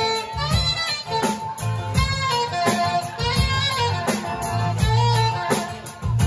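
Saxophone playing a melody of short, changing notes over a backing band with a bass line.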